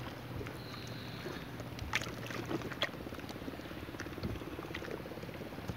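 Quiet outdoor background with a faint low pulsing hum, and a few soft clicks and rustles as hands bait a small fishing hook over a plastic bag, two of them about two and three seconds in.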